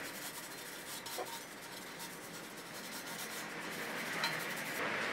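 A cloth rubbing briskly over a metal name plaque, many quick wiping strokes in a row.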